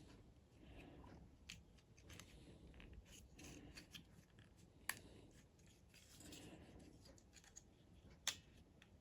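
Faint handling of small parts, with scattered light clicks and two sharper clicks about five seconds in and near the end, as the keyboard is put back together by hand.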